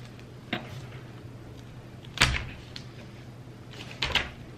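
A few short knocks and rustles of a sheet of paper being pressed down and lifted off a wooden table, the loudest about two seconds in and a double one near the end. A steady low hum runs underneath.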